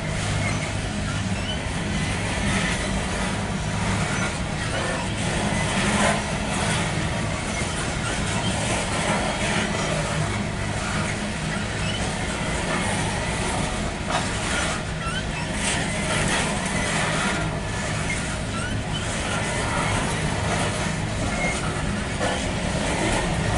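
Loaded coal hopper cars of a CSX freight train rolling past, their wheels rumbling and clacking on the rails, with a steady low hum underneath.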